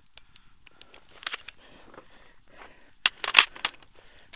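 Handling noise on a small camera being picked up and moved: scattered crackling and scraping rubs, with a loud flurry of sharp knocks about three seconds in.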